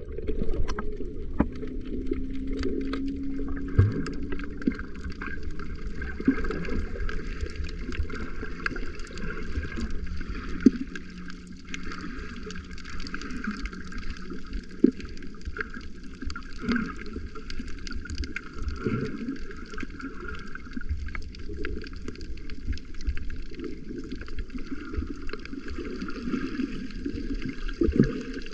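Muffled underwater sound picked up by a camera held below the surface over a coral reef: a steady hiss and wash of water with many small scattered clicks and crackles.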